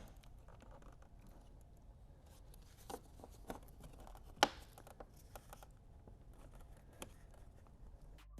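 Faint, scattered clicks and scrapes of plastic being handled as the front grille of an Audi B9 S5 is worked loose from the bumper cover, with the sharpest click about four and a half seconds in.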